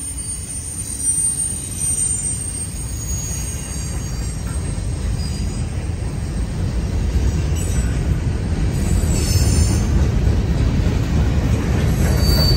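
Freight cars rolling past: a low rumble of steel wheels on rail that grows steadily louder, with faint high-pitched wheel squeal coming and going, strongest near the end.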